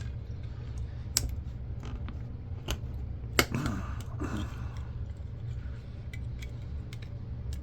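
Small clicks and creaks as the parts of a 1982 General Electric camcorder are pried apart by hand, with a few sharp clicks and the loudest about three and a half seconds in, over a steady low hum.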